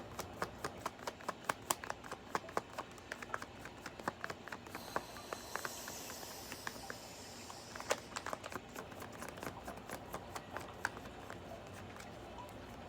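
A deck of tarot cards being shuffled by hand: rapid, irregular flicks and clicks of the cards, with a soft sliding hiss in the middle.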